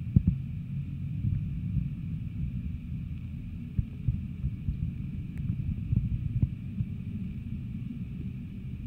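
Muffled low rumble with irregular soft knocks and thumps, typical of a camera's handling noise while filming underwater or against the glass, over a faint steady hiss.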